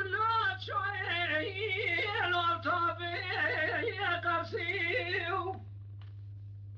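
A solo voice singing one long, ornamented phrase with a wavering, trilling line and no accompaniment, stopping about five and a half seconds in. A steady low hum runs underneath throughout.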